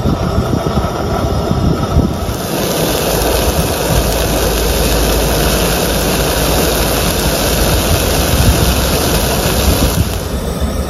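Hot dogs cooking in a frying pan on a Coleman propane camp stove: a steady hiss from the burner and pan that comes in sharply about two seconds in and drops away near the end.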